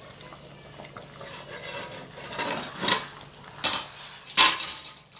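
A stainless steel lid and slotted spoon clattering as the lid is lifted off a clay pot of simmering curry: a few sharp metal clanks in the second half, the loudest near the end.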